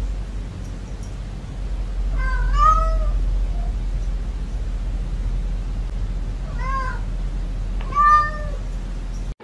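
Domestic cat meowing three times, once about two seconds in and twice near the end, over a steady low hum. The last meow is the loudest and is drawn out so that it sounds like "nooo".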